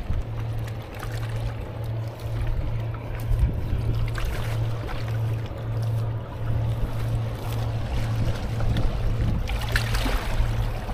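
A boat engine running steadily, with a low hum that throbs about twice a second, over the wash of water.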